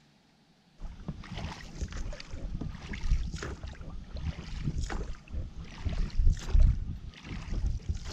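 Oars of an inflatable rowing boat pulling through the water in repeated strokes, with splashes and low knocks and rumble from the oars and boat. The rowing starts about a second in, after a near-silent moment.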